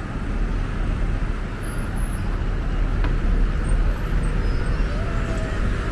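Road traffic: a motor vehicle passing close by over a steady low rumble, with faint voices of passers-by near the end.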